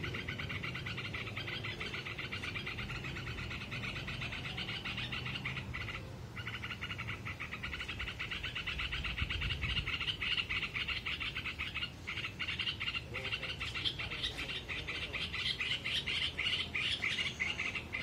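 Dense chorus of rapidly pulsing animal calls, steady apart from two brief breaks about six and twelve seconds in.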